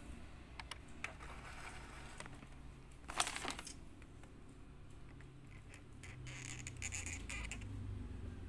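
Handling noises from a plastic action figure and its hammer accessory: a few small clicks and taps, a short crackling rustle about three seconds in, and more rustling near the end as the hammer is brought to the figure's hand.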